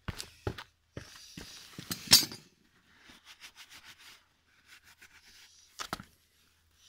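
Loose steel bolts and nuts clinking and scraping as they are handled in a pile. There are several sharp clinks, the loudest about two seconds in, then lighter rattling and shuffling, and a final pair of clinks near the end.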